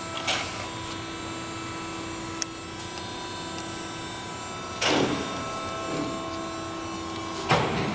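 Jorns CNC sheet-metal folder running with a steady mechanical hum and a few held tones. A short, loud noisy burst comes about five seconds in, and another near the end.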